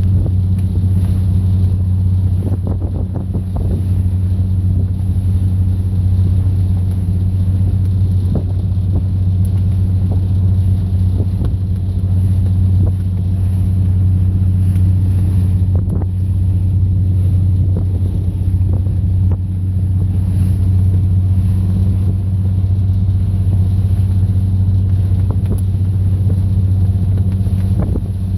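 A fishing boat's engine running steadily underway, a deep even hum heard from on board, with wind buffeting the microphone.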